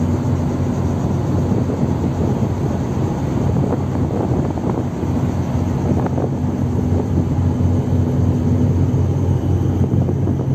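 A landing craft (LCT) cargo vessel's diesel engines running steadily underway, a constant low hum, with wind noise on the microphone.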